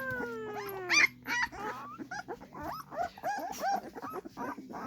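A litter of young puppies crying: one long high wail falling in pitch at the start, then many short overlapping squeaks and yelps.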